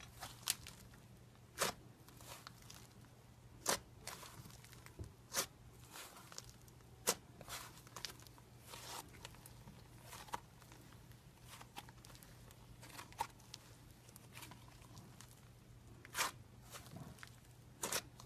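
Thick slime being squished, folded and stretched by hand, giving irregular sharp pops and clicks as air pockets burst, over a faint continuous crackle.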